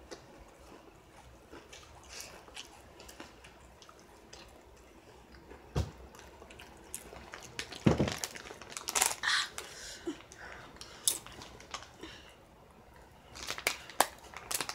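Someone chewing ridged potato chips, with scattered crunches and crinkles and a cluster of louder knocks and crackles about eight to nine seconds in.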